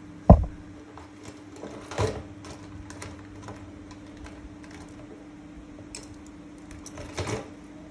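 Hands handling a small wristwatch to work its time-setting pusher: scattered light clicks and taps. A sharp knock comes just after the start, another about two seconds in, and a third near the end, over a steady low hum.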